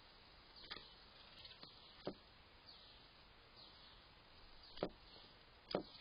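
Faint outdoor background with a few short, high, falling notes from distant birds, and several sharp clicks, the loudest near the end.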